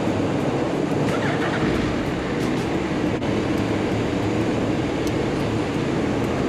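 Steady mechanical rumble echoing around a ferry's enclosed vehicle deck, from the ship's machinery and the vehicles running in the hold.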